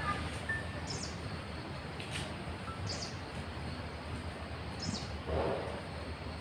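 A bird repeating a short, high call about every two seconds over a steady outdoor background noise. A few faint thin whistles come in between, and a brief louder, lower rush of sound comes near the end.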